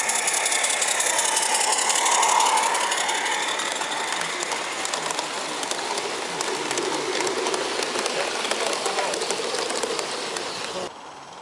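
A 16mm-scale live-steam garden railway train, a tank locomotive and a long rake of carriages, running past with a rapid clicking rattle of wheels on the track. It is loudest about two seconds in, fades as the carriages go by, and cuts off abruptly near the end.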